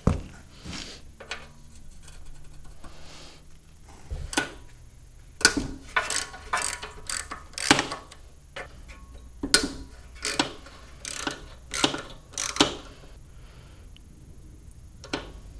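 Socket ratchet wrench clicking in a run of short back-and-forth strokes, about ten over seven seconds, as bolts are worked loose on a small engine.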